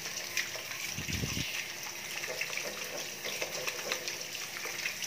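Water running from a sink tap into the basin and splashing over hands being rinsed, with one short low thud about a second in.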